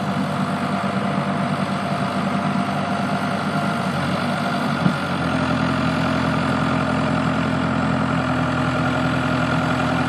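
1992 JCB 1400B backhoe loader's diesel engine running steadily. About five seconds in there is a short click, after which the engine note steps up into a deeper, slightly louder hum that holds steady.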